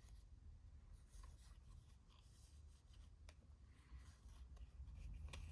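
Near silence: faint rustling and a few light clicks of trading cards and a foil pack being handled, over a low steady room hum.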